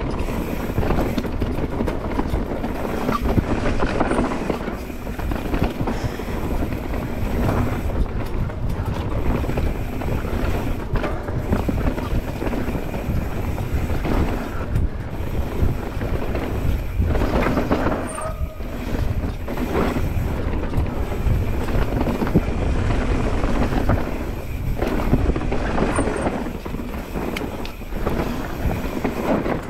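Mountain bike ridden fast down a rough dirt trail: steady tyre and wind noise with a constant clatter of chain and frame rattling over bumps.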